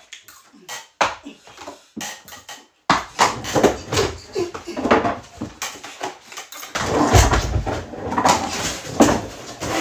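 A broken wooden chair knocking and scraping on a tiled floor as someone sits and shifts on it, a series of irregular clatters, with a heavier thump about seven seconds in.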